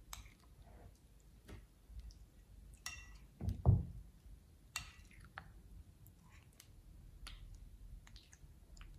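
Thick, wet slime being stirred and lifted with a spoon in a glass bowl: scattered sticky clicks and squelches, with one louder low thud about three and a half seconds in.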